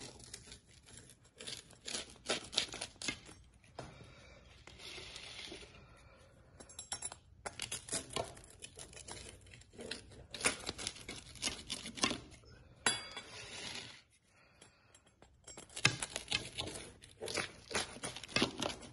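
Rolling pizza-cutter wheel slicing through a baked pizza crust, crackling and scraping against the metal pizza pan. It comes in several passes with short pauses between the cuts.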